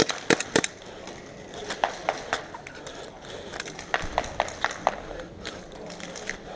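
Scattered sharp clicks and knocks at irregular intervals, a few close together near the start and a cluster in the middle and second half.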